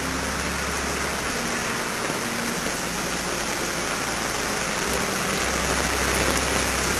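Steady rushing noise of floodwater running across a flooded street, mixed with falling rain.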